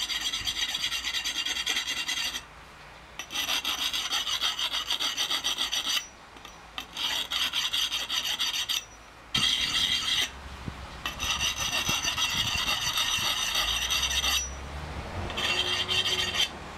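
A fine-grit whetstone stroked rapidly back and forth along an axe blade, a dense scraping that comes in several bouts with short pauses between them: honing the edge after it has been ground with an angle grinder.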